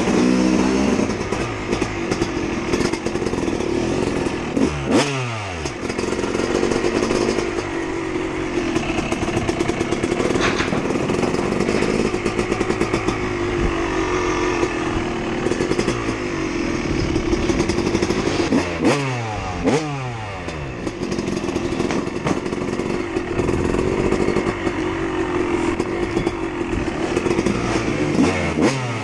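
Freestyle motocross dirt bike engine running under the rider, the throttle rolled on and off, with the engine pitch dropping sharply as it eases off a few times, around five seconds in, near the twenty-second mark and at the end.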